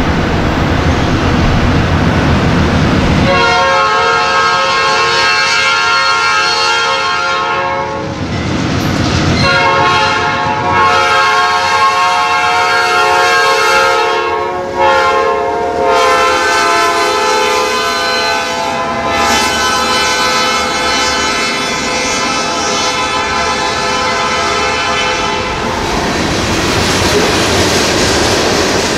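Freight train horn on the lead GE B40-8 locomotive, sounded in three long blasts, the last one the longest, over the rumble of the passing locomotives. Near the end the horn stops and the freight cars roll past with clicking wheels.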